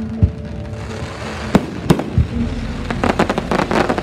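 Aerial fireworks bursting: a few separate sharp bangs, then a dense run of rapid crackling bangs about three seconds in.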